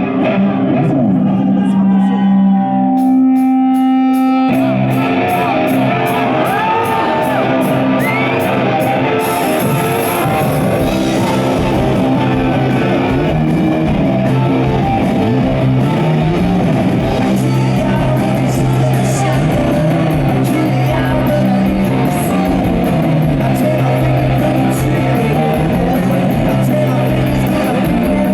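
Live rock band playing loud, with electric guitar, bass and drums. Held guitar notes open it, and the full band with a steady drum beat comes in about four seconds in.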